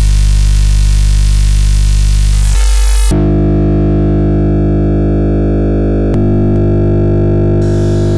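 Oscilloscope-music audio signal generated in OsciStudio and Max MSP: a loud, buzzing synthesizer drone of many held tones whose timbre switches abruptly several times. It starts with a hiss over the buzz, the low tones drop out briefly about two and a half seconds in, then a cleaner buzz follows with further sudden changes about six and seven and a half seconds in.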